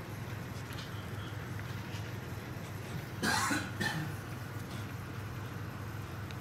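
A short, cough-like burst of breath about three seconds in, with a smaller one just after it, over a steady low hum.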